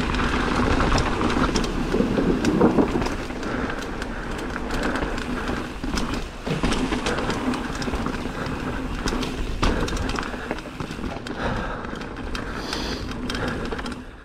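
Mountain bike rolling down a rough trail: steady tyre and rolling noise with frequent rattling knocks from the bike over the bumps.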